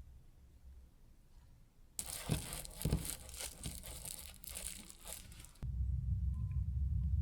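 Crinkling and tearing of wrapping, dense and crackly, for about three and a half seconds. Near the end it gives way to a steady low hum.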